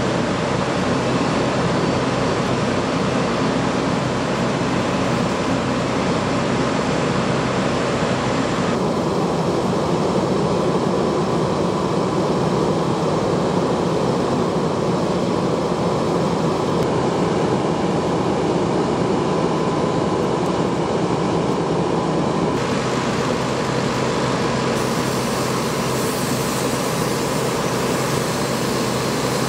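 Fire truck's diesel engine running steadily, a constant loud mechanical drone.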